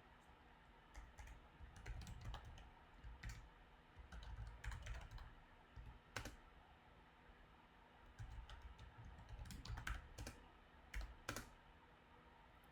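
Computer keyboard typing, faint, in short runs of keystrokes with pauses between them, including a longer pause around the middle.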